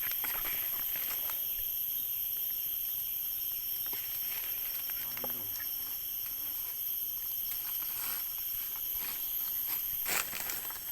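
A steady, high-pitched drone of forest insects, with scattered rustles throughout.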